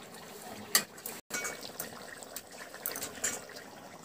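Fish curry bubbling in a wok on a gas stove, with a few light knocks of a metal ladle against the pan. The sound drops out for an instant a little over a second in.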